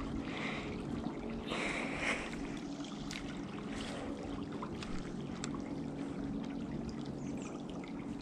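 Small stream flowing steadily, an even wash of running water.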